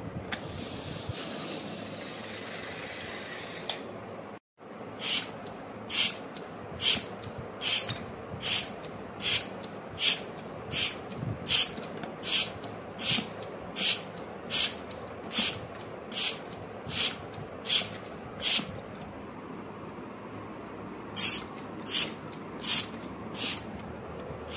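Toy balloon pump being worked by hand: a short puff of air hiss with each push of its plunger, a bit more than one stroke a second, starting about five seconds in. The strokes stop for a couple of seconds, then resume near the end.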